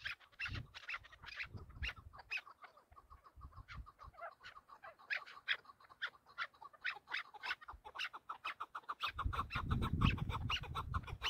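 Chukar partridge calling, a rapid series of short clucking notes that speeds up toward the middle. A low rumble comes in near the end.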